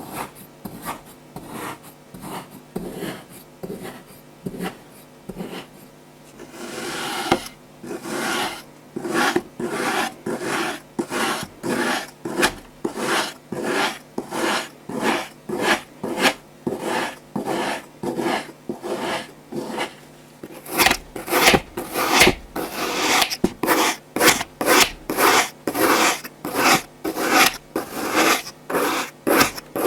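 Kinetic sand crunching and rasping under a tool in quick repeated strokes, about two a second, growing louder about two-thirds of the way through.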